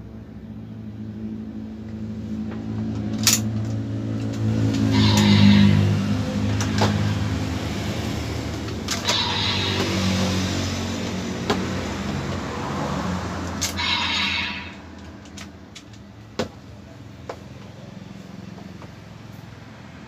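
Electronic sound effects from a DX Desire Driver toy belt with the Boost Raise Buckle, playing a synthesized motorcycle engine revving with bursts of hiss. Sharp plastic clicks come from the buckles being worked, then after about 15 s there are only a few clicks as the pieces are handled.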